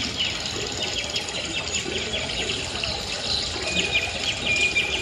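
Rapid bird-like chirps and twitters over a steady watery hiss, with a thin, high whistle-like tone held in the last second.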